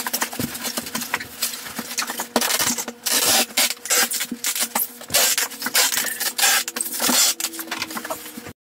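Rapid clicking, rustling and scraping of paper and packing items being handled on a desk, over a faint steady hum. It cuts off suddenly near the end.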